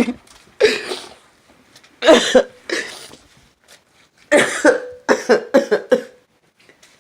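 A person coughing in several bouts of short, harsh coughs, the last bout a quick run of coughs.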